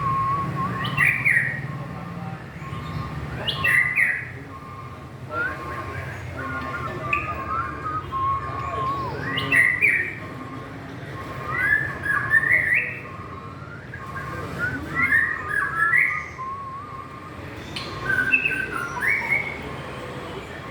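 Murai songbird singing short phrases of rising whistles and chirps, about seven of them at two- to three-second intervals, over a steady faint high tone and a low hum.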